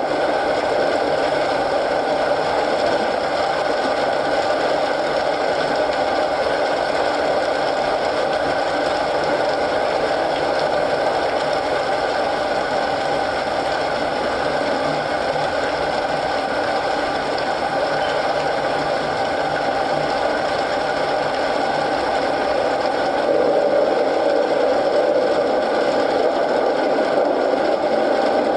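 Steady rain mixed with a crackling wood fire: an even, continuous noise with no pauses, growing a little louder near the end.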